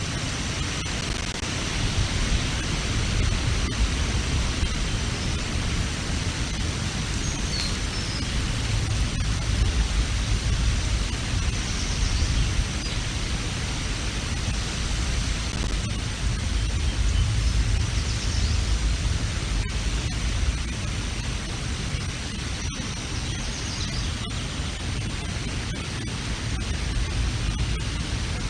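Strong wind blowing across an outdoor camera microphone: a steady rushing noise with low rumbling gusts that swell and ease every few seconds.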